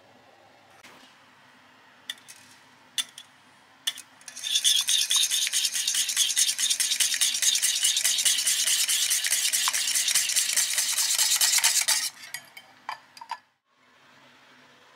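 Wire whisk beating egg yolks in a glass bowl: a few single taps, then about eight seconds of rapid, steady clinking of the wires against the glass, ending with a few more taps.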